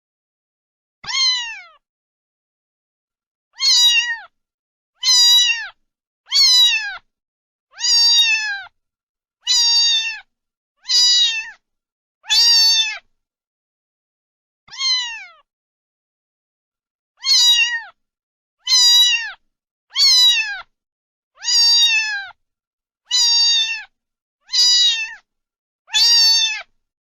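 Domestic cat meowing over and over, about sixteen separate meows, each under a second long and falling in pitch, with dead silence between them.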